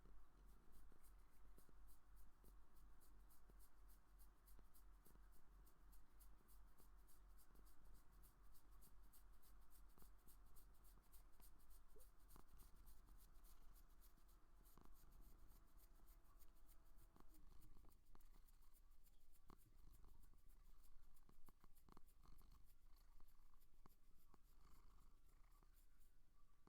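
Faint, rapid, rhythmic purring from an animal, an even train of soft pulses.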